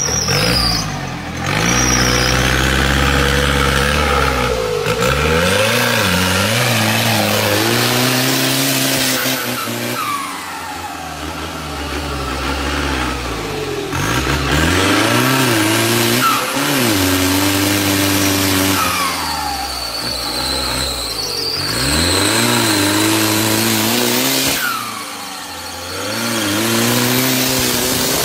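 Off-road 4x4's engine revved hard again and again while the vehicle struggles through deep mud. Its pitch climbs and drops in about six surges.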